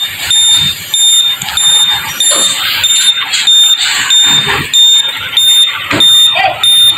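Reversing alarm on an LPG tanker lorry, sounding a steady run of high-pitched beeps, a little under two a second.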